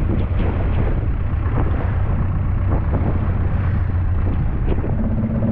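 Longtail boat's engine running steadily under way, a constant low drone, with wind buffeting the microphone.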